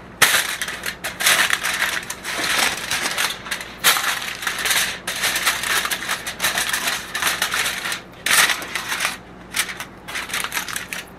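Aluminium foil crinkling and rustling as it is pressed and folded by hand into a drip pan, in irregular crackly bursts with short pauses.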